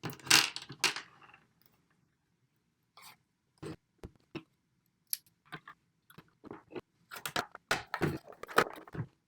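Small plastic case parts and screws of an audio interface being handled and fitted together by hand: a knock about half a second in, then scattered clicks and taps that come thicker near the end.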